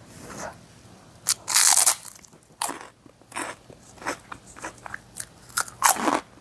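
Close crunching of a crisp pork rind being bitten and chewed with a scoop of creamy dip: the loudest crunch comes about one and a half seconds in, then irregular smaller crunches as it is chewed.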